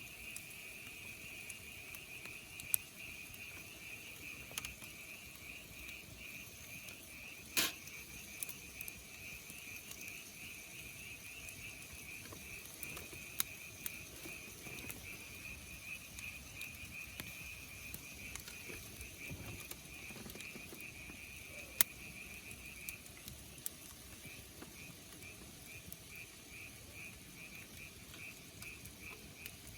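An insect chirping with a steady high pulsing, in rapid runs that break into separate chirps of a little over two a second about three-quarters of the way through. A few sharp clicks stand out, the loudest about a quarter of the way in.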